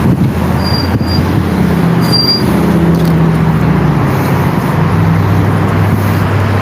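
A motor vehicle's engine running close by, a steady low hum that shifts slightly in pitch, over loud road and traffic noise.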